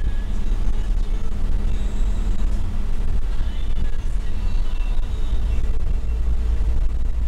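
Cabin noise inside a moving Toyota HiAce Commuter van: a steady low rumble of engine and road noise.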